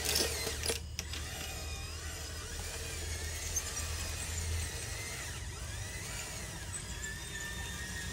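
Small electric motors and gearboxes of radio-controlled construction models whining as they speed up and slow down, over a steady low hum that drops away about four and a half seconds in.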